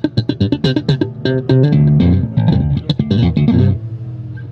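Bass guitar playing a quick run of separate plucked notes; the playing stops shortly before the end.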